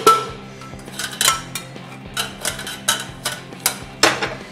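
Metal cooking pot and steel strainer clanking together in a run of sharp, irregular knocks as boiled chana dal is tipped and shaken out to drain off its cooking water. The loudest knock comes near the end.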